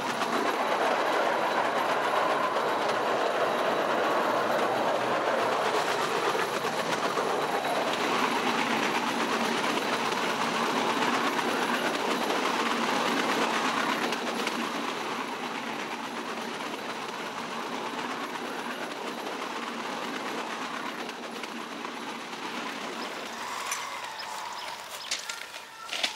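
Bamboo train (norry) rolling along the rails: steel wheels clattering on the track in a steady rush of noise that eases and grows quieter after about fourteen seconds. A few sharp knocks near the end.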